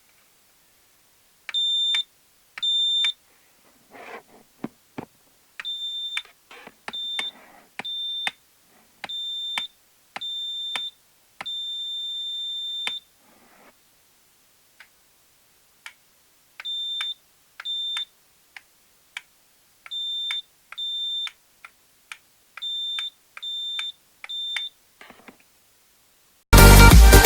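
Homemade wireless doorbell's 12 V buzzer beeping in short bursts of uneven length, with one longer beep of about a second and a half near the middle, with faint handling clicks and rustles between the beeps. Loud electronic music cuts in right at the end.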